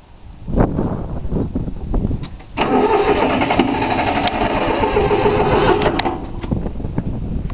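Three-cylinder Yanmar diesel engine being cranked by its starter for about three seconds, then stopping without running. The fuel lines were not bled, so air in the fuel keeps it from firing.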